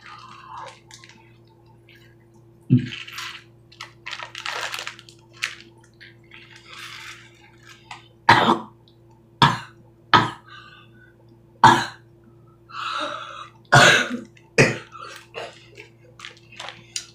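Plastic bag holding a little water, twisted tight by hand: rustling and crinkling, with a run of short, loud crackles in the second half.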